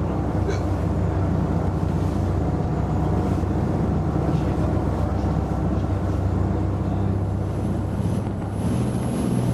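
Twin Iveco N67 diesel engines of an 11-metre catamaran running steadily under way, a constant drone with water rushing along the hull; the drone shifts in tone near the end.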